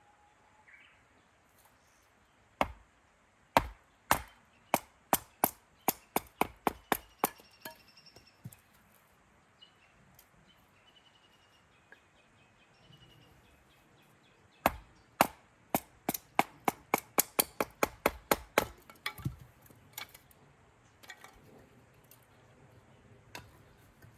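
Firewood being chopped or split at a campsite: two runs of sharp wooden strikes, each opening with a few heavy blows and then speeding up to about three lighter strikes a second.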